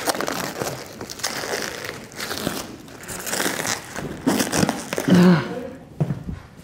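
White protective car cover crinkling and rustling as it is pulled off the car's roof and bunched up by hand, with a short vocal sound about five seconds in.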